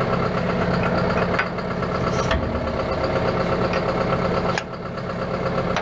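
John Deere 6430 tractor's diesel engine idling steadily close by, with a brief sharp clack about two seconds in.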